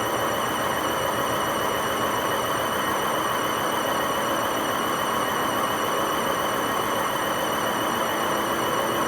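Hotpoint WMA50 washing machine spinning with its ballast weights removed: a steady rushing roar with a high, slightly wavering whine over it, the sound of very badly worn drum bearings.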